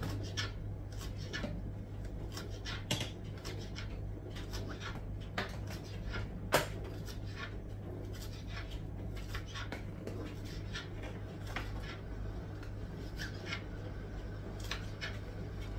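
Kitchen knife chopping scallions on a cutting board: a run of irregular blade taps, with one sharper knock about six and a half seconds in.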